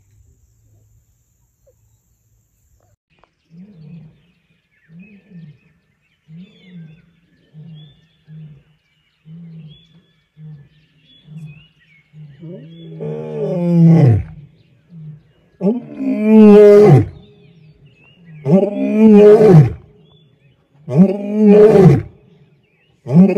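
Male lion roaring. After a few quiet seconds, a run of soft low moans about a second apart builds into loud, full roars, four of them in the second half, with a fifth starting at the very end.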